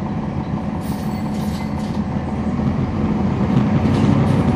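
On-board sound of a 2011 NABI 40-SFW transit bus with its Cummins ISL9 diesel engine running steadily. There are a few brief interior rattles about a second in. The engine grows louder near the end.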